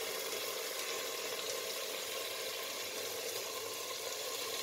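Mutton and thick onion-tomato masala sizzling and bubbling steadily in oil on a high flame, cooked down to the stage where the oil has separated.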